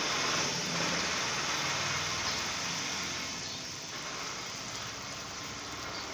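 Watery small-fish curry boiling in an aluminium kadai over a clay stove, a steady hiss of boiling liquid.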